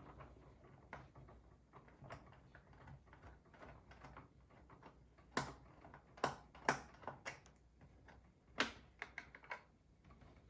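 Hands handling small plastic playset pieces: a run of light, irregular taps and rustles, with a few sharper clicks in the second half.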